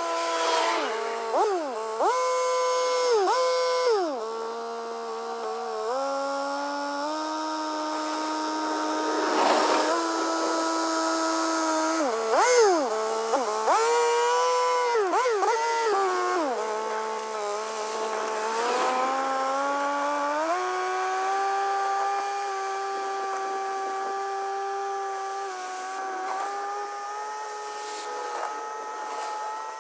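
Yanmar F195 compact tractor's diesel engine running with its rotary tiller working; the engine note dips sharply and recovers several times in the first half, then rises and holds a steadier pitch as the tractor pulls away.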